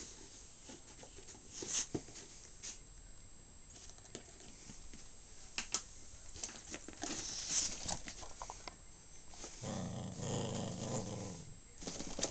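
Small dog playing tug with a rope toy: scattered clicks and scuffling, then a low growl lasting about two seconds near the end.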